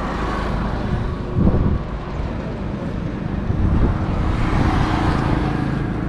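Steady rumble of passing road traffic, with a brief louder swell about a second and a half in.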